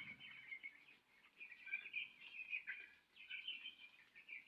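Faint, high-pitched chirping and cheeping from the farm's chickens, short calls scattered through.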